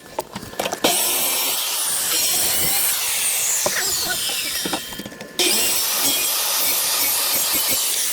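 Power tool cutting into a bass boat's fiberglass-and-wood floor, running steadily in two long stretches with a short stop about five seconds in.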